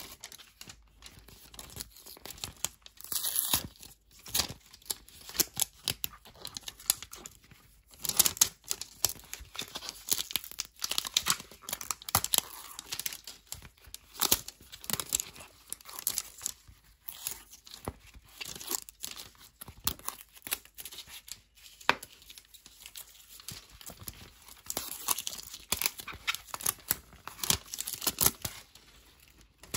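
Paper seal strip being torn and peeled off a plastic surprise-toy egg, with crinkling of the wrapping and plastic handling noises in irregular crackles and rips.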